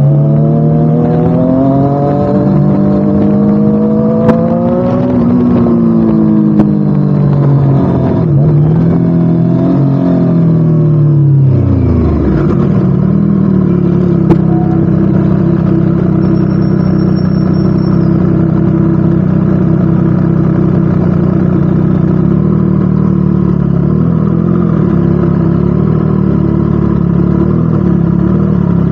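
Triumph Street Triple RS inline-triple engine breathing through a Spark slip-on exhaust. It is revved with pitch rising and falling for the first dozen seconds, drops away sharply, then runs at a steady pitch.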